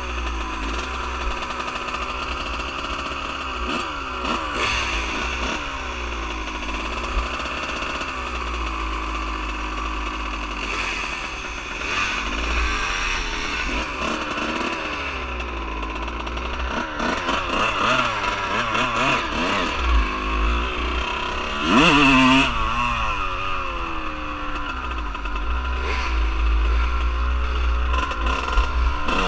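Dirt bike engines running at low revs, the pitch rising and falling with blips of the throttle, with a sharp rev about 22 seconds in; near the end the bikes pull away and the engines run louder.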